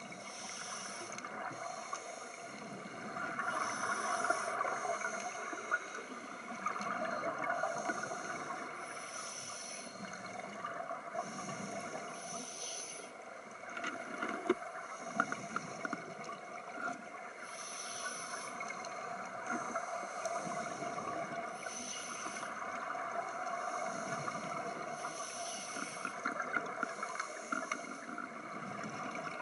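Scuba regulator breathing underwater: the hiss of inhaled air and the bubbling rush of exhaled air, repeating every few seconds, with a few faint clicks and knocks.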